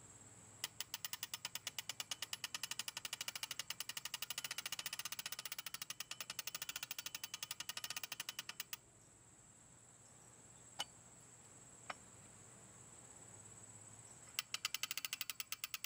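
Ratchet clicking from the spring motor of a 1910s Paillard clockwork fan as its crank is turned to wind it: a quick, even run of about six clicks a second. The clicking stops a little past halfway, with two lone clicks in the gap, then starts again near the end.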